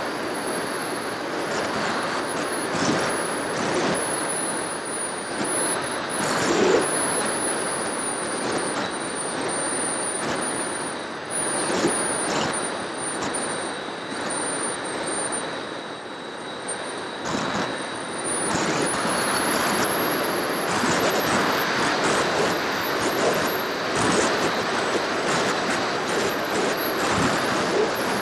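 Airflow rushing over an FPV aircraft's onboard camera in flight, with a thin, high motor-and-propeller whine that wavers slightly in pitch and a fainter steady tone beneath it. The rush swells and eases a little as the craft manoeuvres.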